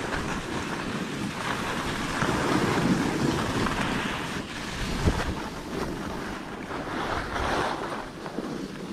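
Skis sliding and scraping over packed snow, with wind rushing on the GoPro's microphone, loudest a couple of seconds in and easing off toward the end. There is a single sharp knock about five seconds in.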